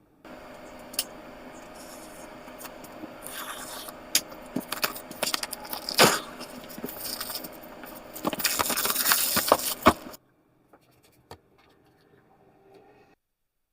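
Irregular sharp clicks, knocks and scraping over a steady hum, with a denser rustling, clattering stretch near the end, all cutting off suddenly about ten seconds in.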